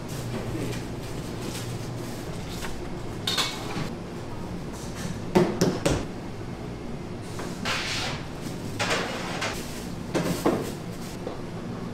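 Wet dough pieces being set down on a silicone-lined metal baking tray, with a handful of short knocks and thuds as the hands and dough meet the tray. A steady low hum sits underneath.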